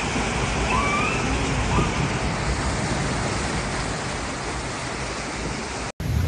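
Foamy floodwater surging and rushing across open ground, a loud, steady rush of water. The sound drops out for an instant near the end.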